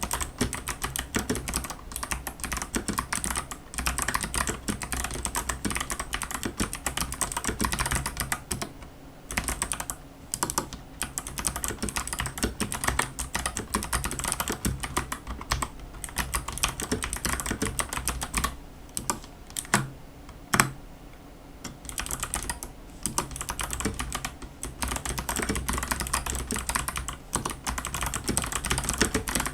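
Steady fast typing on a Ninja87 PRO mechanical keyboard with stock, unlubricated Kailh Box White clicky switches under XDA-profile keycaps: a dense run of crisp key clicks with a few short pauses, and one louder single keystroke about two-thirds of the way through.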